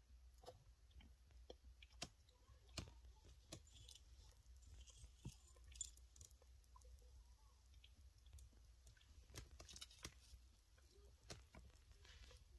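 Faint, irregular ticks of a dwarf hamster nibbling and chewing a piece of food at a small ceramic dish.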